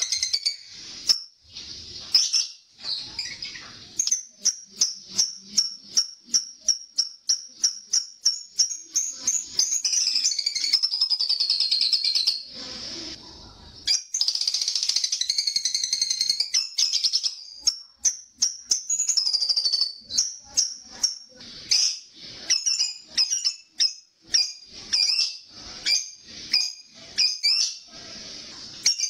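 Lovebird chattering: strings of shrill, rapid chirps that run together into long, unbroken bouts of fast chatter, the call known as ngekek, with a short lull in the middle.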